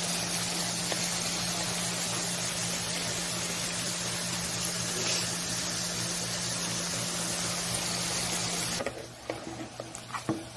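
Patties sizzling steadily in hot frying oil in a pan; the sizzle cuts off about nine seconds in, followed by a few clicks of a spoon in a bowl of batter.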